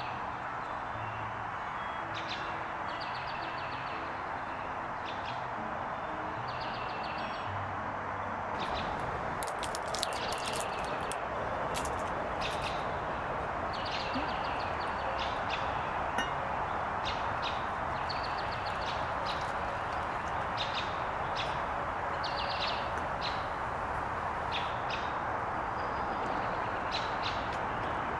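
Birds chirping in short calls repeated every second or two over a steady hiss of rain, with a few sharp clicks about nine to twelve seconds in.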